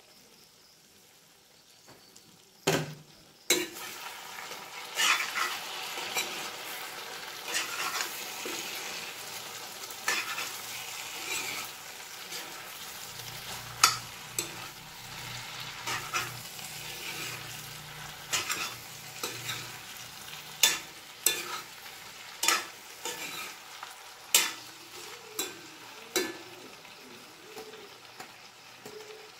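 Chicken and jackfruit pieces sizzling in a cast-iron kadai while a wooden spatula stirs them, knocking and scraping against the pan over and over. Two sharp clanks come about three seconds in, just as the sizzling starts.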